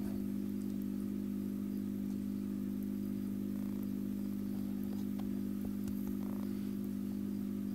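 Steady mechanical hum with several steady low tones, and a few faint small clicks.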